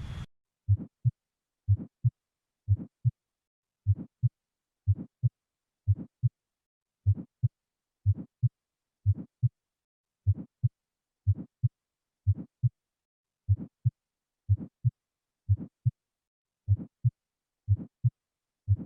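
Recorded heart sounds heard through a stethoscope: a steady lub-dub at about one beat a second, each beat a pair of short, dull thuds with silence between beats.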